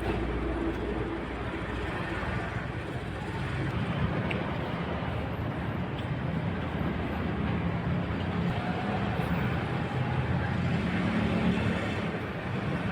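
Steady road traffic: vehicles passing on a highway, their engines and tyres running continuously.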